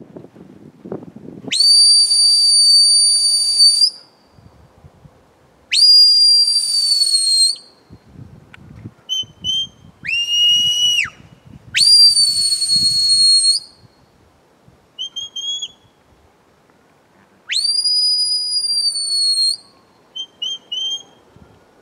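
Shepherd's whistle giving commands to a working Border Collie: a series of long, steady, high-pitched blasts of about two seconds each, some bending slightly in pitch at the end, and one lower blast midway through.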